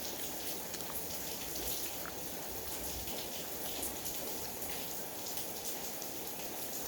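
Steady rain falling, an even hiss with a few faint ticks scattered through it.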